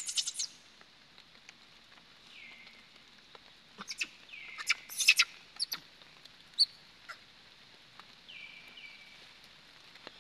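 High-pitched animal chirps in two short rapid clusters, one at the start and one about four to five seconds in, with a few single falling whistled notes between.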